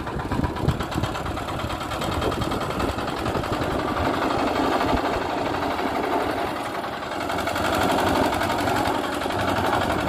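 Portable drum concrete mixer's engine running steadily.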